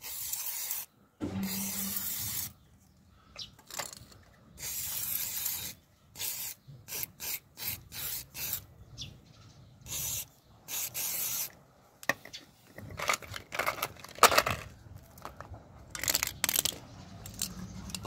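An aerosol cleaner spray can hissing in several short blasts of a second or two each, washing dirt off an ATV's stator plate. In the second half come sharp clicks and knocks of metal tools being handled.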